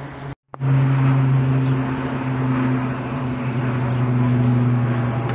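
A steady engine drone, a low hum with a higher overtone, that starts abruptly after a brief break about half a second in.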